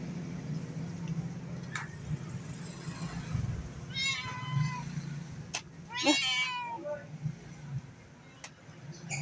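Domestic cat meowing twice, two wavering calls about two seconds apart, each under a second long.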